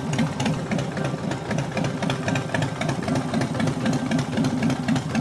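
Loud motorcycle engine running at low revs with a fast, uneven pulsing as the bike rolls away slowly.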